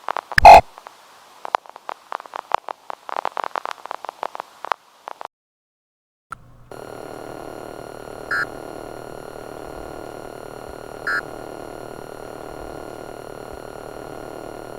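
Mock emergency-alert broadcast audio: rapid crackling static with one loud burst about half a second in. After a brief silence, a steady electronic buzzing tone starts about six and a half seconds in, with two short beeps over it a few seconds apart.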